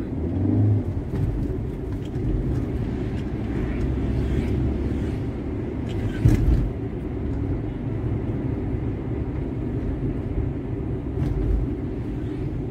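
Toyota manual car heard from inside the cabin: steady engine and road rumble while cruising in fourth gear just after the upshift, with a brief thump about six seconds in.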